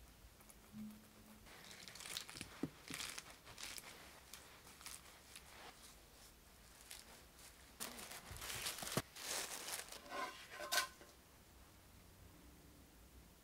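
Quiet crinkling and rustling of sandwich making: crisp lettuce leaves being layered onto bread and plastic cling wrap being handled, with a few soft taps. The crinkling is densest and loudest in the second half.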